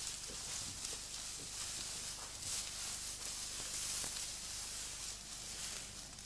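Tall grass swishing and rustling against legs and clothing as people walk through it, in uneven surges of hiss, over a faint low hum.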